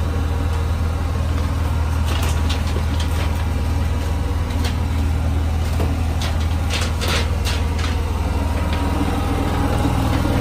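Portable generator engine running steadily with a loud low hum, with a few light clicks and taps in the middle.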